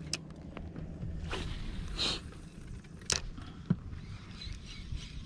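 Wind rumbling on the microphone and water noise around a small inflatable boat, with two short swells of noise in the first half and a few sharp clicks from handling a spinning rod and reel, the loudest about three seconds in.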